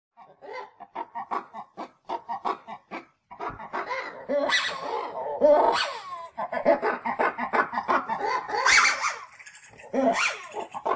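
Ring-tailed lemur calls: a quick run of short grunting calls, about four a second, for the first three seconds, then louder, longer calls that rise and fall in pitch.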